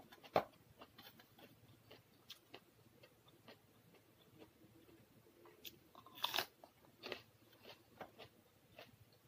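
Close-up eating sounds: crunchy bites and chewing, with scattered crackles and the loudest crunches about half a second in and again around six seconds.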